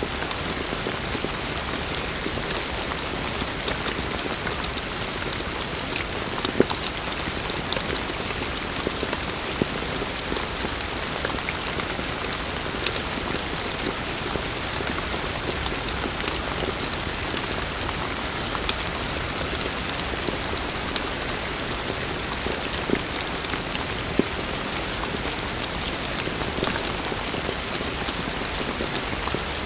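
Heavy rain falling steadily, a dense hiss of drops with scattered louder single drop hits on nearby surfaces.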